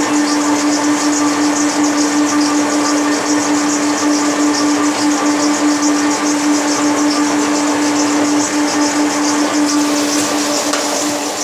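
Motor-driven heater collar making machine running steadily: a constant mid-pitched hum with a dense, fast, even rattling hiss over it.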